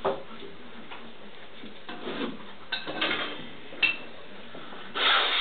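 Two Alaskan malamute puppies play-fighting on a tiled floor: claws clicking and scrabbling on the tiles, with scattered sharp ticks and a louder burst of scuffling near the end.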